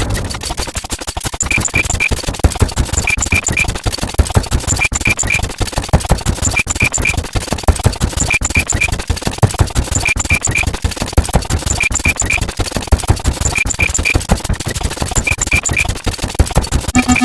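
Many copies of a stock sound effect layered into a dense, noisy din full of sharp clicks, with a group of three short high beeps repeating about every second and a half.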